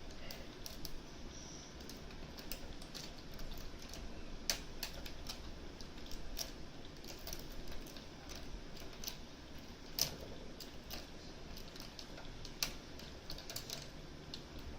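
Irregular small clicks and light scraping of a lock-pick hook probing inside a Mosler M5700 safe deposit box lock, feeling for the catch that retracts the bolt; a couple of sharper clicks come about four and a half and ten seconds in.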